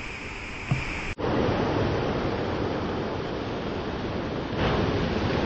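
Steady rushing water of Wilson's Falls on the Muskoka River. It turns louder after an abrupt cut about a second in, with a short thump just before the cut.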